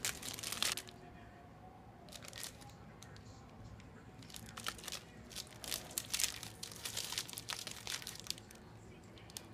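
A Clif Bar wrapper being torn open and crinkled by hand, in crackling bursts: at the start, around two and five seconds in, then a longer stretch of crinkling.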